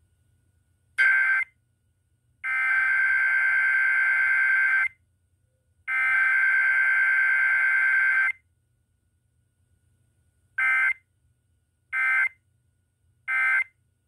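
Emergency Alert System required weekly test played through an FM radio: SAME digital data bursts, a short one, then two long header bursts of about two and a half seconds each, followed by three short end-of-message bursts about a second and a half apart. No attention tone or voice message.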